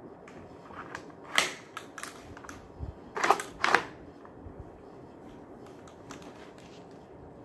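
Hard plastic clacks from a QWK Challenger Mk III foam-dart blaster being readied: one sharp clack about a second and a half in as the magazine goes in, then two clacks close together about three seconds in as the charging handle is pulled back and pushed forward by hand. The handle is pushed home by hand because it does not return fully with a loaded magazine, which otherwise jams the blaster.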